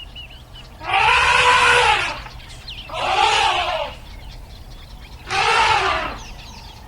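An animal calling three times. Each call is harsh, about a second long, and rises then falls in pitch.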